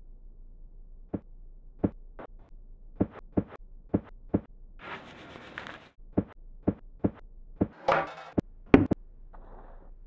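A series of about a dozen sharp knocks or taps at irregular intervals, broken by a hiss about a second long in the middle and a brief rustle near the end.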